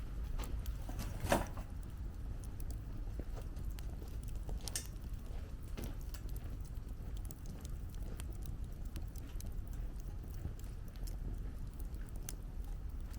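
Wood campfire crackling, with scattered small pops and a sharper crack about a second in and another near the middle. Wind rumbles low and steady underneath.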